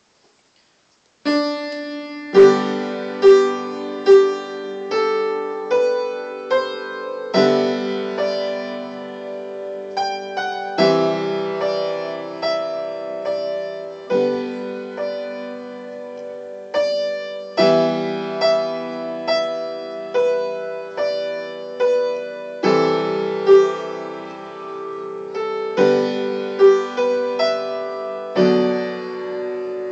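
Solo piano playing a slow piece of sustained chords with a repeated note ringing over them. The playing begins about a second in.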